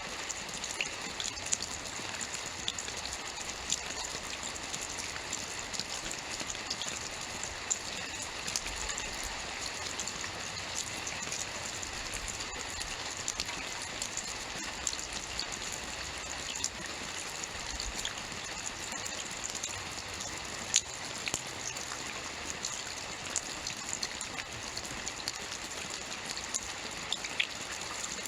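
Steady rainfall, an even hiss with many small drop impacts scattered through it.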